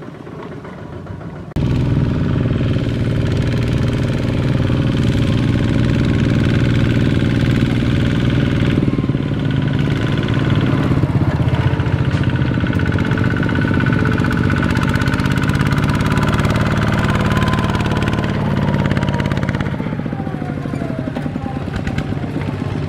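Two-wheel walking tractor's single-cylinder diesel engine running steadily under load, pulling a loaded trailer. The sound jumps louder about one and a half seconds in and eases a little near the end.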